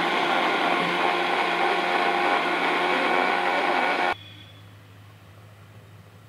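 Electric mixer grinder (mixie) running steadily as it blends watermelon, then stopping abruptly about four seconds in.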